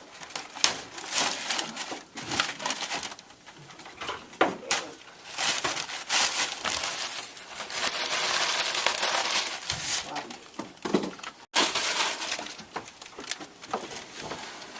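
Model railroad scenery of chicken wire and plywood being broken apart: scattered sharp cracks and snaps, with a longer stretch of crunching and scraping in the middle.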